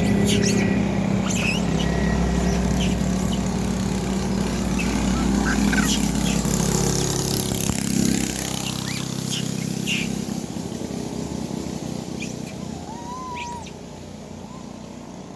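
A vehicle engine running steadily, then fading away over the last few seconds, with short bird chirps over it.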